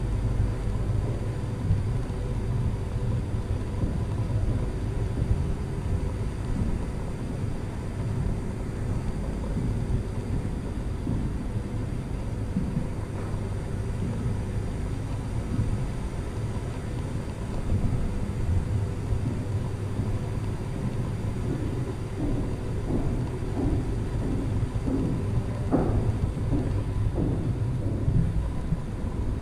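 Steady low rumble of background noise with a faint constant hum, and a few faint short sounds near the end.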